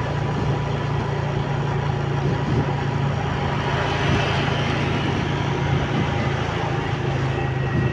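Motorcycle engine running steadily at cruising speed, with road noise from the ride.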